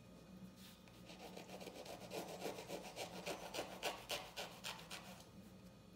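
A knife sawing back and forth through a crusty bread roll, soft rapid scraping strokes about four a second as the blade cuts into the crust and crumb. The roll is being split partway open like a hot dog bun.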